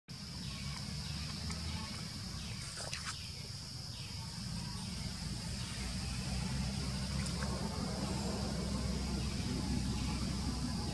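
Forest ambience: a steady high insect drone with a short call, falling in pitch, repeated roughly once a second. A couple of sharp clicks come about three seconds in, over a steady low rumble.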